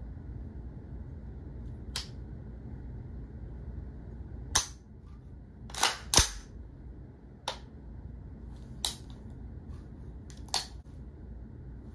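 Smith & Wesson MP-15 Sport II AR-15-style rifle, fitted with a JP Enterprises silent captured buffer spring, Radian Raptor SD charging handle and low-mass bolt carrier, having its action worked by hand: sharp metallic clacks of the charging handle and bolt, about seven in all, a second or two apart, with a close pair about six seconds in.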